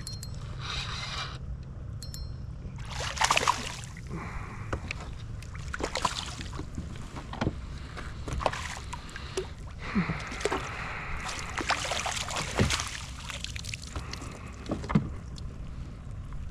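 Water splashing and knocks and rustles on a fishing kayak, in short irregular bursts over a low steady rumble.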